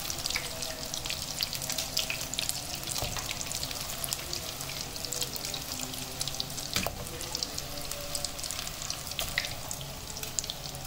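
Breaded chicken cheese rolls deep-frying in hot oil in a karahi: steady sizzling with many small crackles as the golden rolls are lifted out. A single clink of a metal spatula or strainer comes about seven seconds in.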